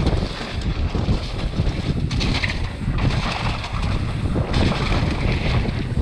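Wind buffeting the camera microphone over the rumble and rattle of a mountain bike's tyres and frame on a fast descent of a dirt trail.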